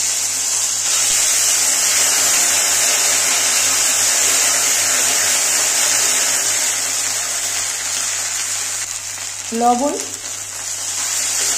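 Ginger and cumin paste sizzling in hot oil with whole spices in a steel kadai, being stirred with a metal spatula. A steady frying hiss that eases a little near the end.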